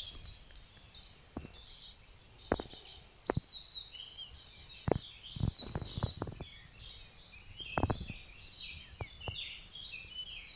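Woodland birds chirping continuously in many short high notes, with scattered sharp snaps and crackles of footsteps on the dry twigs and leaves of the forest floor, several close together about halfway through.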